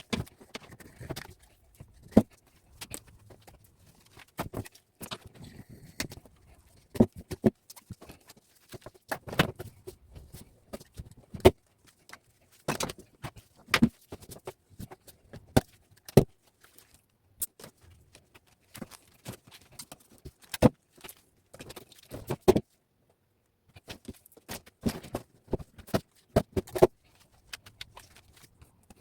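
Irregular sharp clicks, snaps and taps of copper wire being stripped and cut by hand, without a wire-stripping tool. There is a short pause about three quarters of the way through.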